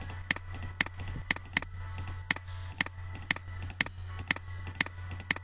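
Computer mouse clicking at a steady pace, about two sharp clicks a second, selecting faces one by one, over a low steady hum.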